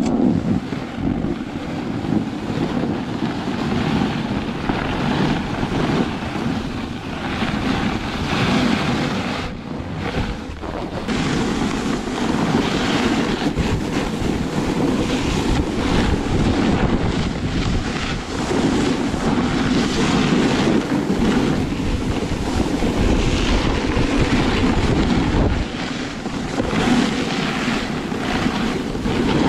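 A snowboard riding down a groomed piste, its edges scraping over packed snow in uneven swells, with wind buffeting the camera microphone.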